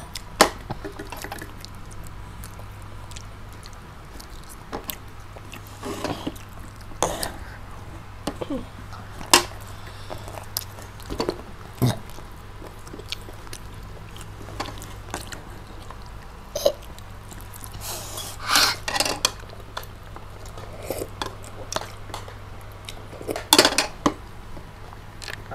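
Close-miked eating sounds: fingers picking at crispy fried chicken and rice on plastic plates, and chewing. These come as scattered soft clicks, crackles and smacks, with a few louder clusters near the end, over a steady low hum.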